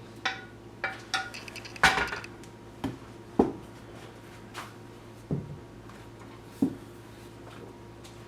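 Cooking utensil clinking and knocking against pans and dishes while the sauce is served over the eggs: about nine sharp clinks at irregular, thinning intervals, a few with a brief metallic ring, the loudest about two seconds in.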